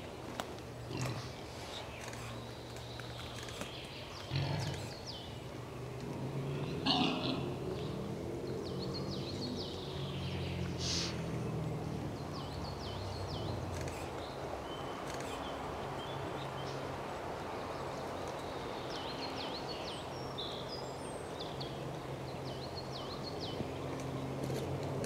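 Wild boar grunting low and almost without pause as they forage, with a short falling squeal about seven seconds in. Small birds chirp in the background.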